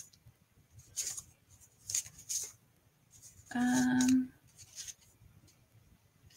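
Paper cards and craft pieces being handled, a few short rustles. About three and a half seconds in, a woman's voice gives a brief steady hum.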